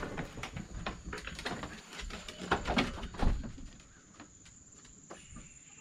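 Irregular knocks and scuffs, loudest from about two and a half to three and a half seconds in and dying away after about four seconds, over a steady high-pitched chirring of insects.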